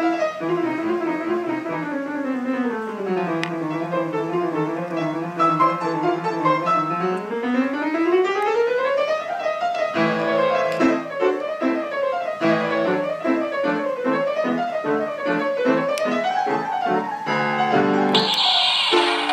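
Electronic keyboard-style music. A sustained tone slides down, holds low for a few seconds and slides back up, then gives way to a quick melody of short, rhythmic notes. A burst of hiss joins near the end.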